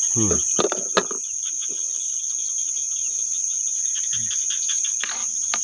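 Steady, high-pitched chorus of night insects, with two sharp clicks, one about a second in and one near the end.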